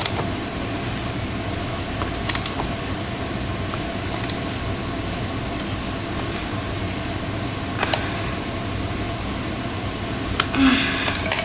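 Steady background hum and hiss, with a few isolated sharp clicks from a wrench working a rear sprocket bolt on a 2002 Yamaha YZ125 dirt bike: one about two seconds in, one near eight seconds, and a small cluster near the end.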